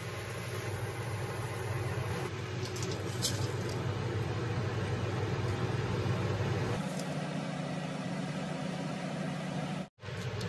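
Water at a rolling boil in a stainless steel wok: a steady low rumble with bubbling. Its tone shifts abruptly about two seconds in and again about seven seconds in.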